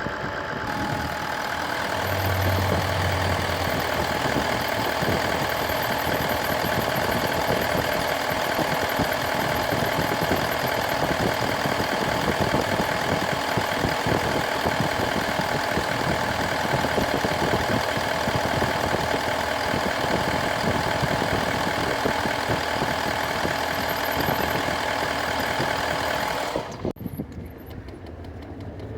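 Idling car engine with a steady whistle coming from under the hood of a new car. The sound drops away abruptly near the end.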